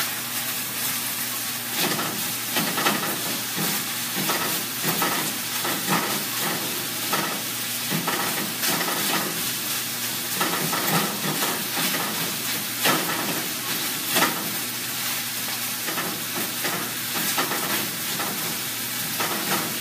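Food sizzling in a frying pan on a gas burner as it is stirred, with the utensil scraping and knocking against the pan at irregular moments.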